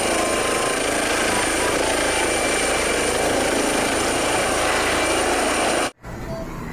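Toy helicopter giving out a steady helicopter rotor noise that cuts off suddenly near the end.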